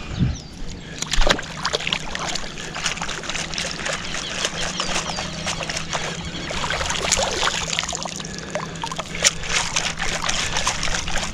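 Shallow lake water sloshing and splashing as a long-handled metal-detecting sand scoop is dug and dragged through it, with scattered small clicks and knocks.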